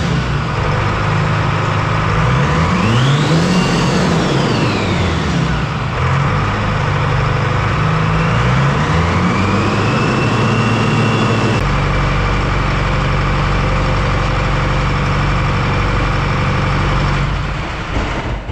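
Detroit Diesel 4-53T four-cylinder two-stroke turbo diesel running unloaded on a test stand, revved up and let fall back twice by hand throttle, then held steady before it is shut down and runs down near the end. It is a test run of a freshly rebuilt N blower, and the engine runs smoothly.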